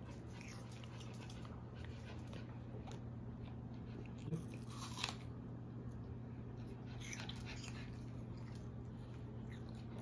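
A toddler biting into and chewing a raw apple, with small wet crunches and two louder crisp bites about four and five seconds in, over a steady low hum.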